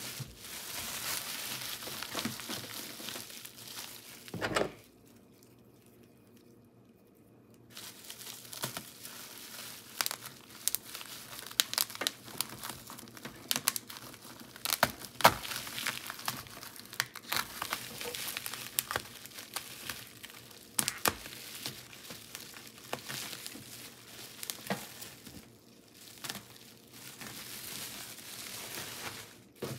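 Clear plastic wrapping around a new food dehydrator crinkling and crackling as hands pull at it, with many sharp crackles. A single thump comes about four seconds in, then a few seconds of near quiet before the crinkling starts again.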